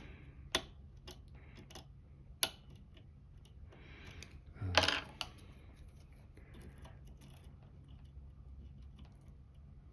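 Scattered small metallic clicks from a lock pick and tension wrench in a Lucznik pin-tumbler lock as the picked plug is turned past its trap pins, with one louder clack about halfway through. A low hum runs underneath.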